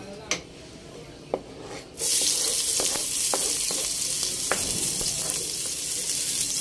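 Chopped garlic going into hot cooking oil in a stainless steel pot: a loud sizzle starts suddenly about two seconds in and carries on steadily as the garlic is stirred, with the spoon clicking against the pot now and then. Before the sizzle there are only a few light clicks.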